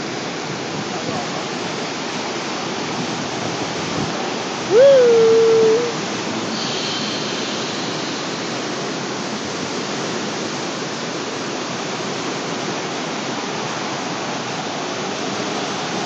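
Floodwater rushing through a swollen river in a steady, even wash of whitewater noise. About five seconds in, a single loud held tone sounds for about a second.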